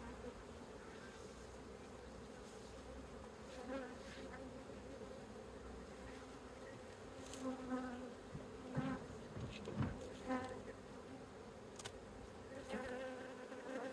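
Steady hum of many honeybees in an opened hive, with louder buzzing swells now and then from about seven seconds in.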